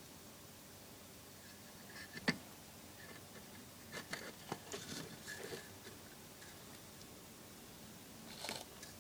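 Handling noise as a copper-clad board lid is lifted off a homemade amplifier box: a sharp click about two seconds in, a cluster of light clicks and scrapes a couple of seconds later, and a brief scrape near the end.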